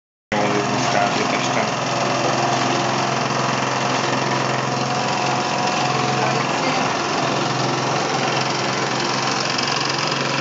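Mamod model steam engine running fast and steady: a rapid, buzzing beat with a hiss of steam.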